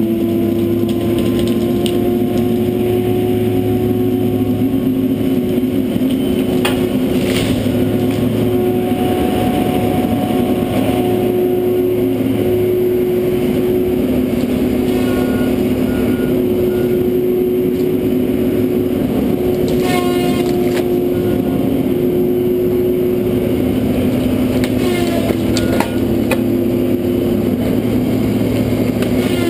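John Deere 843J feller buncher running steadily at close range, its diesel engine and hydraulics making a constant drone. There are a couple of short knocks, and a few short high beeps, like a reversing alarm, about halfway through and again near the end.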